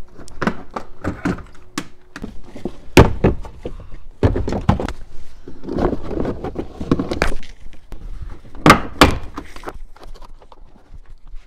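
Hard plastic trim and the cargo floor cover in the rear cargo area of a 2010 Toyota Highlander being handled and pulled apart by hand: a run of knocks, clicks and scraping, with a loud thunk about three seconds in and two more just before nine seconds.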